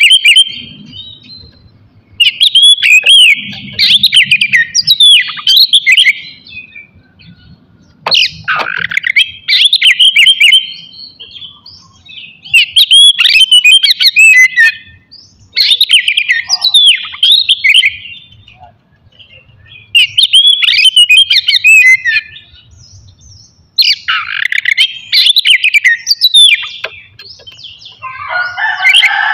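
Oriental magpie-robin (kacer) singing loudly in phrases of rapid, varied whistles and chirps, each lasting two or three seconds, with short pauses between them, about seven phrases in all.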